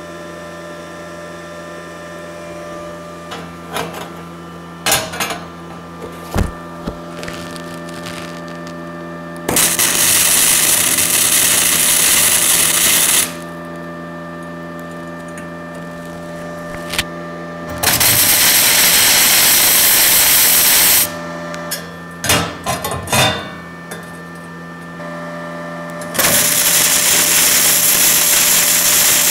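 Gasless flux-core arc welding on 2 mm steel with a Parkside PIFDS 120 A1 inverter welder: three bursts of the arc crackling, each a few seconds long with pauses between, the last still going at the end. Before the first, a few knocks and clicks over a steady hum.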